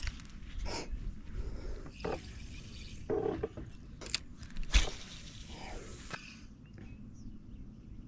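Scattered knocks, clicks and scrapes of a spinning rod and reel being handled, the loudest knock about five seconds in, over a low rumble of wind on the microphone.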